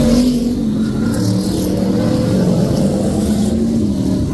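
Brisca F1 stock car engines running on the oval, a steady drone whose pitch rises and falls a little.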